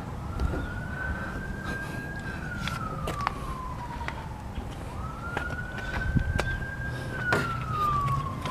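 A siren wailing in slow cycles: the tone rises quickly, holds high for about two seconds, then slides slowly down, twice, with a few scattered clicks and a low rumble beneath.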